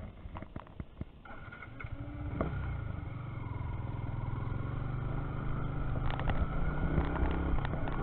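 Yamaha motorcycle engine: a few light clicks, then about a second in the engine sound comes up and runs steadily, growing louder as the bike pulls away and rides off.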